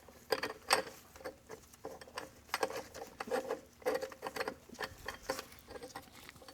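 Irregular light clicks and taps of small metal transmission parts being handled and fitted by hand while assembly lube is applied to hold a part in place.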